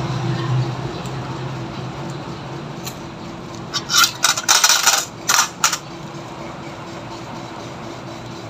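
Medical supplies being handled during a toe dressing: a quick cluster of sharp clattering and crinkling sounds lasting about two seconds around the middle, over a steady low hum.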